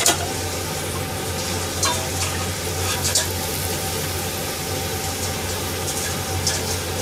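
Hamburg steaks and vegetables sizzling in a covered frying pan: a steady hiss with sharp crackles a few times, over a low steady hum.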